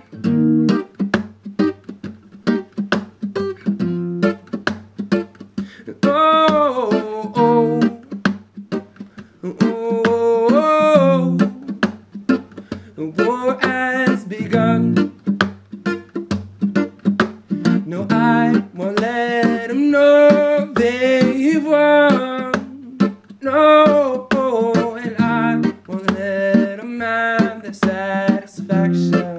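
A man singing to his own acoustic guitar, the guitar played in a steady rhythm of strokes. The voice comes in phrases with gaps between them, where only the guitar is heard.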